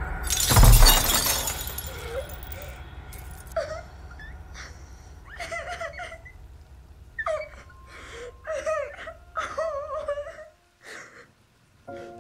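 A mirror shatters with a loud crash, its glass pieces tinkling down for a couple of seconds. Then a boy sobs and whimpers in short, broken cries over a low rumble that stops near the end.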